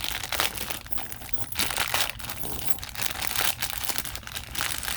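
Plastic and foil packaging crinkling and rustling continuously in the hands as a blind-box toy figure is unwrapped, with short tearing sounds.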